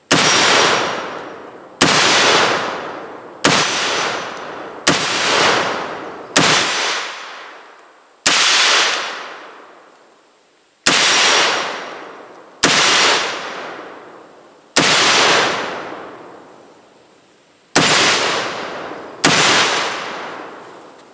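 Diamondback DB15 AR-15 pistol in 5.56 firing eleven single, deliberate shots, roughly one every one and a half to two and a half seconds. Each sharp report is followed by a long echo that fades over a second or more.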